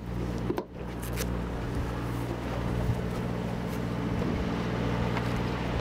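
Sportfishing boat's engine running steadily at low revs, a constant low hum, with wind and water noise over it.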